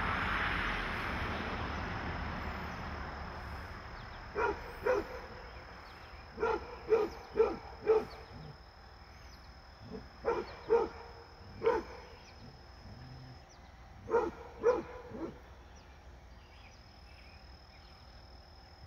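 Basset hound barking in short clusters of two to four barks, about a dozen in all, trying to get a deer to play. A rushing noise fades away over the first few seconds.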